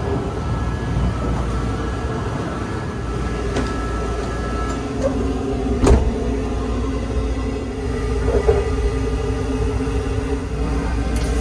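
Odakyu Romance Car running, heard from the vestibule as a steady low rumble. A sharp click about six seconds in comes from a toilet door's handle and latch being worked.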